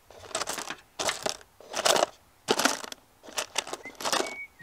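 A hand rummaging through a plastic tub full of loose steel bolts, the bolts clattering and scraping against one another in about six short bursts.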